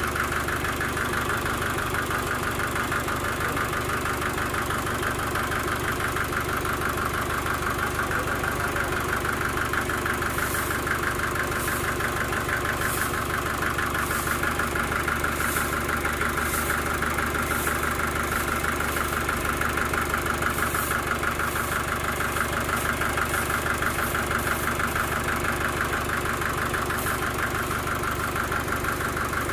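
Sawmill engine running steadily at an even speed. A run of short, irregular high ticks comes in about a third of the way through.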